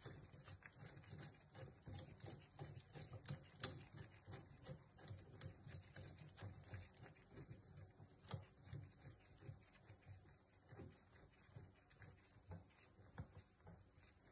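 Faint, irregular small metallic clicks and creaks from a gear puller's forcing screw being turned by hand against a tractor water pump, with sharper clicks about three and a half and eight seconds in.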